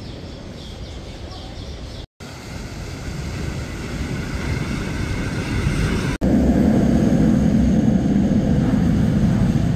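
A metro train rumbling loudly past the platform screen doors from about six seconds in. Before it comes a steady outdoor hiss that grows louder, broken by a short dropout about two seconds in.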